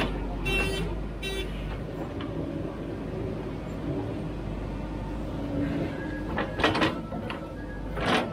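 JCB 3DX backhoe loader's diesel engine running steadily while the backhoe digs in wet paddy mud. A few short, evenly spaced beeps sound in the first second and a half, and louder bursts of noise come twice near the end.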